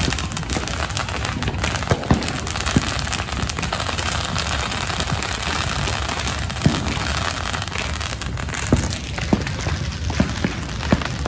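Fireworks going off: scattered sharp pops and bangs at irregular intervals over a steady crackling hiss.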